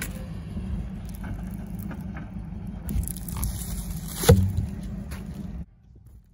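Pickup truck engine idling with a steady low hum, with a single loud thump about four seconds in; the hum cuts off suddenly near the end.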